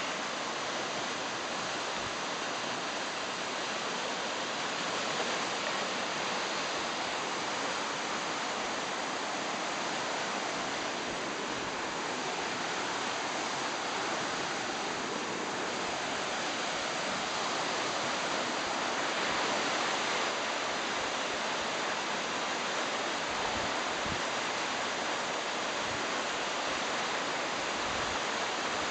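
The current of a Pyrenean gave (mountain river) rushing steadily over shallow rapids and gravel riffles.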